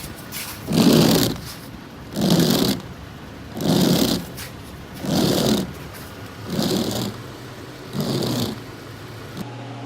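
Windshield wipers of a 2007 Toyota FJ Cruiser sweeping across the glass, one swish about every second and a half, seven times. A steady low hum starts near the end.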